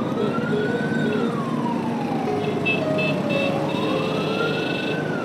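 Siren of the convoy's emergency vehicle wailing, its pitch slowly rising and falling twice, over the steady running of a motorcycle engine and road noise.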